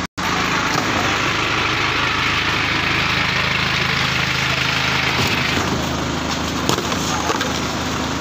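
Wooden boards and stall frames being pulled apart and tossed aside, with scraping clatter and a few sharp knocks in the second half, over a steady low engine hum and crowd voices.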